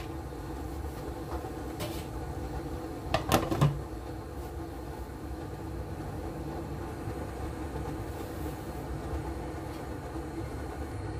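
A glass lid set down onto a metal cooking pan, a few quick clinks and a light thud about three seconds in, over a steady low hum.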